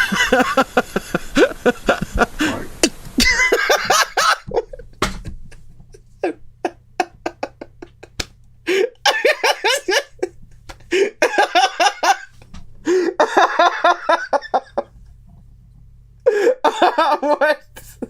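A man's voice making strange wordless noises in bursts: yelps and laughter-like rapid pulses, with short pauses between.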